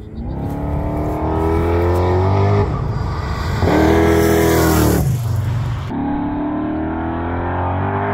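Small-block Ford V8 with long-tube headers revving hard at full throttle under electric-turbo boost, heard as three separate runs that each rise in pitch, with abrupt changes between them. The middle run is the loudest and carries a strong hissing rush.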